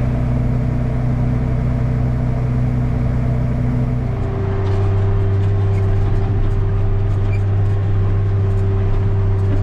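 Large diesel engine of harvest machinery running steadily; its pitch drops a little and settles about four seconds in.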